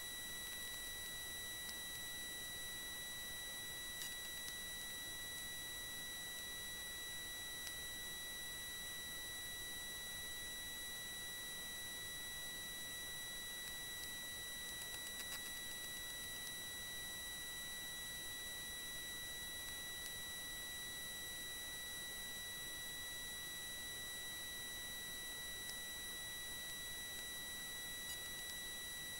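A steady high-pitched electronic tone with several overtones over a faint hiss, and a few faint clicks here and there.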